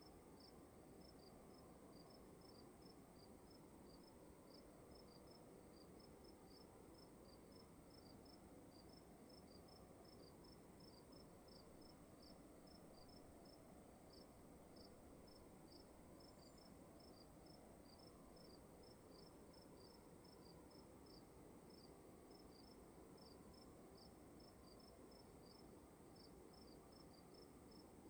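Faint crickets chirping in short, evenly repeated chirps, with a steady high-pitched ring above them, over a low, even room hiss.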